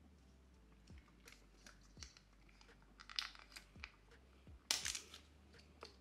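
Protective plastic film being peeled off the metal base plate of a Deepcool AG620 CPU cooler: faint crinkling and tearing with small clicks, louder about three seconds in and again about five seconds in.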